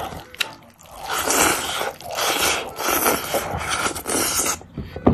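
Braised pork rice being shovelled from a glass bowl into the mouth with chopsticks, close to the microphone: a few rushes of scraping, rustling sound that stop shortly before a single sharp click at the very end.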